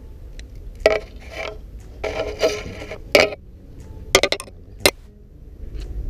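A string of sharp clicks and clattering knocks of hard objects being handled, with a longer rattle about two seconds in and a quick run of clicks just after four seconds.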